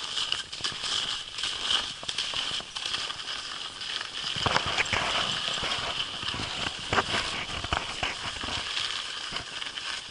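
Skis and a husky's paws moving over snow: a steady scraping hiss with irregular crunches, a few louder ones around the middle.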